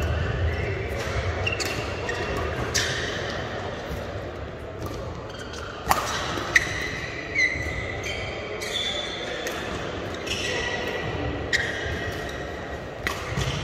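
Badminton rally: sharp racket strikes on the shuttlecock at irregular intervals, mixed with shoes squeaking on the court, echoing in a large sports hall.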